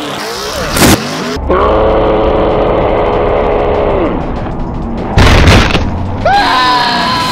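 Banger-racing cars crashing into each other, with a hard hit about a second in and another, heavier one around five seconds in, mixed with music and a long held tone between them.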